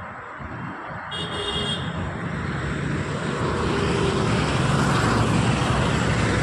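Road traffic: a motor vehicle's engine and tyre noise growing louder over the first few seconds as it comes close, then holding steady.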